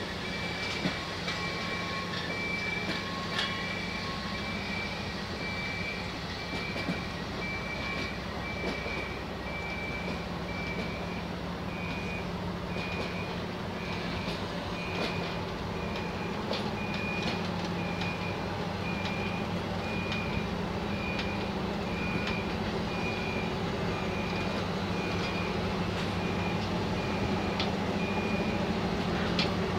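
Passenger carriages rolling slowly past during shunting, with a low running hum, rumble and scattered wheel clicks that grow a little louder toward the end. An electronic warning beep repeats a little more than once a second throughout.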